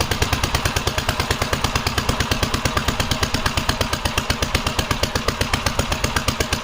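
Vintage Gravely tractor's single-cylinder engine running steadily, firing at about eleven pulses a second. It is really loud because its aftermarket muffler has no baffle.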